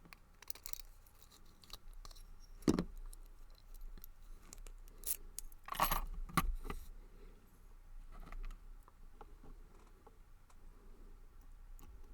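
Small metallic clicks and jingling as a brass padlock and its key are handled during reassembly after re-pinning, with a sharp click almost 3 seconds in and a cluster of clinks around 6 seconds in.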